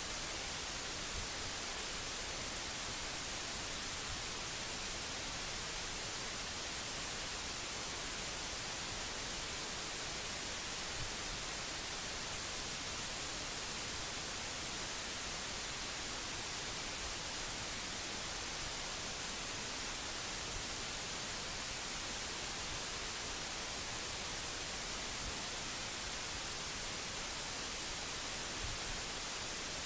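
Steady hiss of an open recording microphone's noise floor, even throughout and strongest in the high frequencies, with no other distinct sound.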